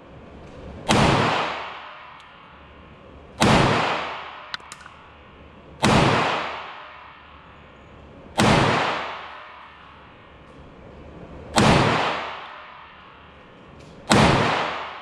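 A 9mm Glock 19 in a CSG Micro carbine chassis firing six slow, deliberate shots, about two and a half seconds apart. Each report is loud and rings on for a second or more in the echoing indoor range.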